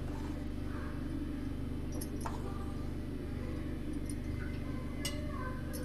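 A steel spoon clinking lightly against a steel bowl of rice flour a few times, about two seconds in and again near the end, over a steady low hum.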